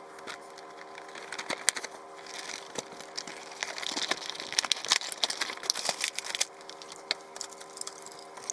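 A cardboard toy box and its plastic packaging being opened by hand, with irregular crinkling, scraping and clicking that gets busier and louder in the middle.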